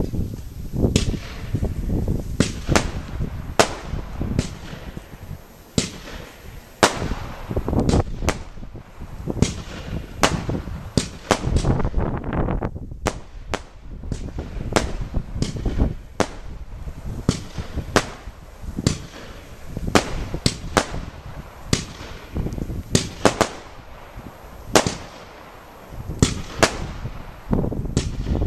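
Lidu Crossing Camuro 30-shot fireworks battery firing comet shots one after another, a sharp bang about every second or less.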